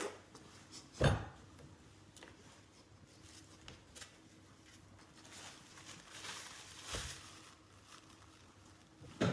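A woman gagging and retching on an oyster: a sharp retch about a second in, fainter heaving breaths later, and another short retch near the end.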